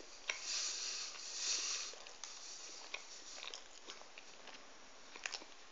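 Faint chewing of a mouthful of glazed doughnut, with small wet mouth clicks scattered through and a soft hiss of breath in the first two seconds.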